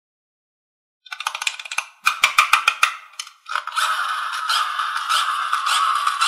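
Clockwork of a wind-up toy crab: a run of sharp clicks, then from about three and a half seconds a steady buzzing rattle as the mechanism runs.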